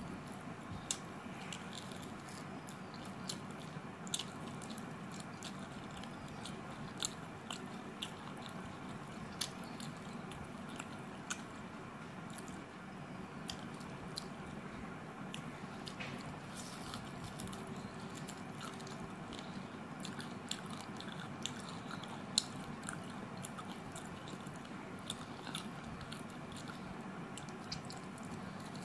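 A person eating rice and mutton kosha with her fingers, chewing with many short, sharp clicks and smacks at irregular intervals.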